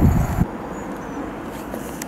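A loud low rumble of wind on the microphone, cut off abruptly less than half a second in. Then a much quieter, steady outdoor noise at a railway platform, with a train still far off down the line.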